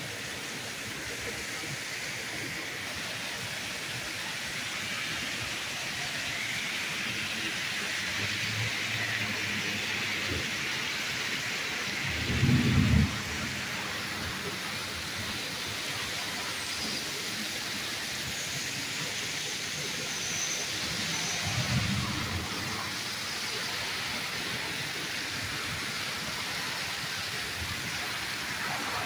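Torrential rain pouring down in a steady hiss. It is broken by two brief low rumbles, the louder one about twelve seconds in and a fainter one near the end.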